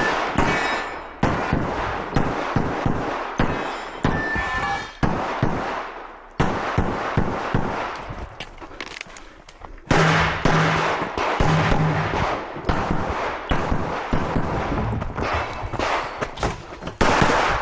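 Rapid semi-automatic fire from a 9mm-class Glock pistol during a timed USPSA stage. The shots come in quick strings with short breaks between them, likely at reloads or target transitions, and a brief metallic ring is heard once.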